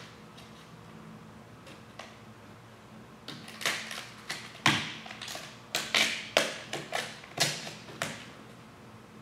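Scissors cutting through vinyl wrap film, trimming off the excess: a run of about a dozen quick, crisp snips starting about three seconds in.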